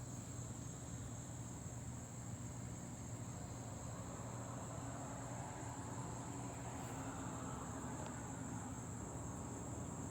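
Steady high-pitched insect chorus, with a low steady hum beneath it and a faint rushing swell that rises and fades in the middle.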